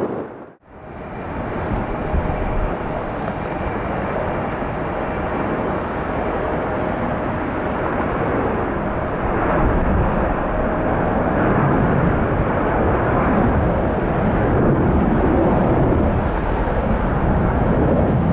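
Jet engine noise of a Boeing 757-200 on approach, a steady rush with faint steady tones that slowly grows louder, mixed with wind on the microphone. A short drop-out about half a second in.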